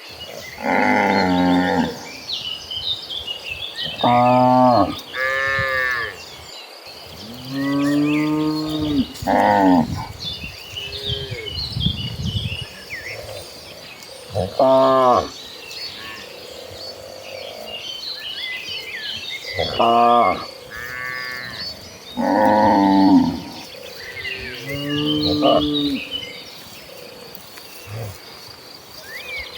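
A herd of cattle mooing, about ten separate calls one after another, some low and some higher-pitched, over a steady high whine and scattered short high chirps.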